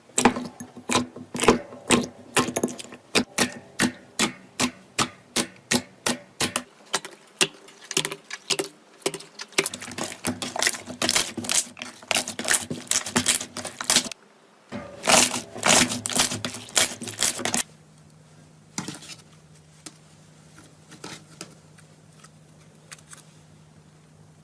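A rapid series of sharp clicks, evenly spaced at about three a second for the first six seconds, then denser and crackling, stopping suddenly about seventeen seconds in and leaving only a few faint clicks.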